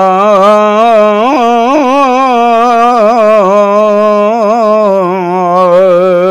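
A man's unaccompanied voice holding one long sung note at the end of a line of Punjabi Sufi kalam, with quick wavering ornaments about a second or two in and again around three seconds in, then settling back onto the steady held note.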